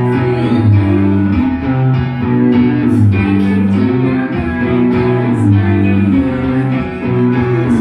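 Live indie rock band playing an instrumental passage without singing: electric guitars over a steady bass guitar line.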